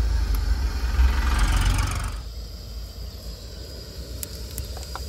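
A low rumble for the first two seconds, then quieter. Near the end, cumin seeds dropped into hot oil in a steel kadhai start to crackle and pop with sharp scattered clicks.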